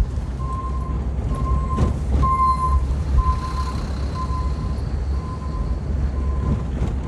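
Small manual car's engine running at low speed, a steady low rumble heard from inside the cabin, with a couple of knocks about two seconds in. A repeating high beep, about one a second, sounds over it and stops near the end.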